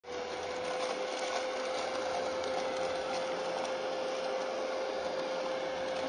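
Mini desktop vacuum cleaner running steadily, an even whir with a constant pitched hum, as it sucks up small scraps of debris from a tabletop.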